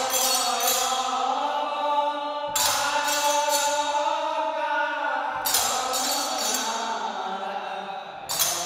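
Sattriya devotional music: chanting voices holding long notes, with a ringing cymbal crash about every three seconds.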